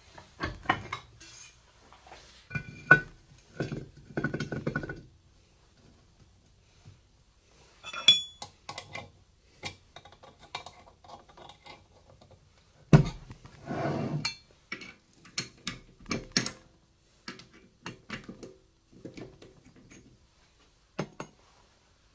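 Steel clanks, knocks and clinks of workshop handling: a length of rectangular steel box section being set and clamped in a machine vice on a pillar drill, with a few ringing metal clinks. There is no drill running.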